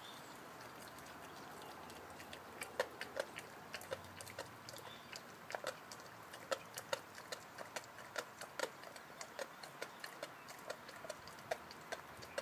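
A Rottweiler gnawing on a large meaty beef bone: sharp, irregular cracks and crunches of teeth on bone, a few a second. They start about two and a half seconds in.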